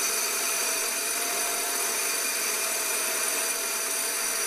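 Inland DB-100 diamond band saw running steadily, its water-cooled diamond blade cutting through a glass bottle: a constant whine with several high tones over a hiss.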